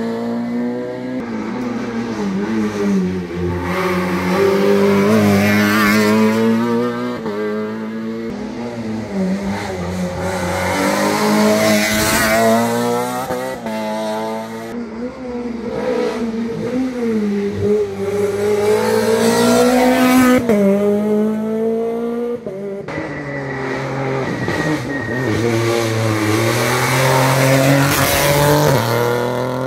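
Rally car engines revving hard on a special stage, the pitch climbing and dropping back again and again through gear changes. Near the end a Peugeot 208 rally car accelerates close by.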